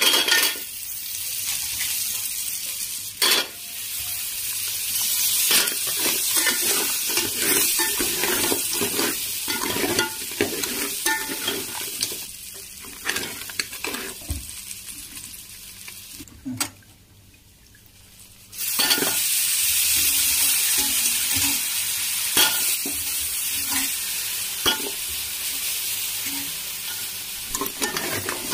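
Crab pieces and spices frying in hot oil in a steel pan, sizzling steadily, while a steel spatula stirs and scrapes with scattered clicks and taps. A little past the middle the sizzle drops away for about two seconds, then comes back at full strength.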